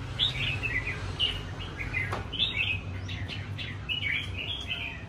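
Caged red-whiskered bulbuls chirping and calling: a busy run of short whistled notes from several birds, some overlapping.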